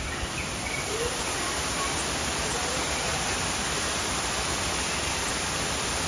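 Steady rushing noise of a waterfall, constant and even throughout.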